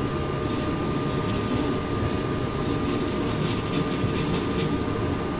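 Steady mechanical hum and hiss of background room noise, with two faint steady whining tones and a few light rustles.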